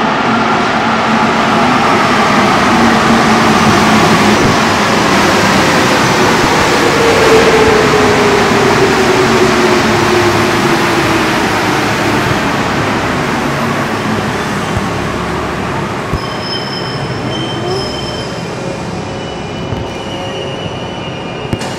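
Santiago Metro NS-74 rubber-tyred train pulling into a station: a loud rushing run with a tone that falls in pitch as the train slows. The noise fades as it comes to a stop, and thin, steady high tones sound near the end.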